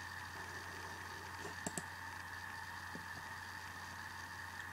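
A few faint clicks of a laptop being operated: a quick pair about one and a half seconds in and a single softer one near the three-second mark, over a steady low hum.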